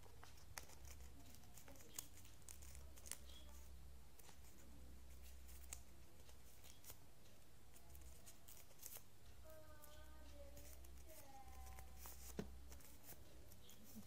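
Faint rustling and a few sharp crinkles of a sheet of origami paper being folded and creased by hand.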